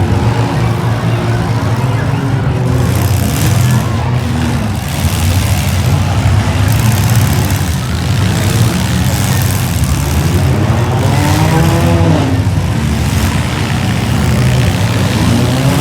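Several compact demolition derby cars' engines running hard together, their revs rising and falling several times, most clearly near the end.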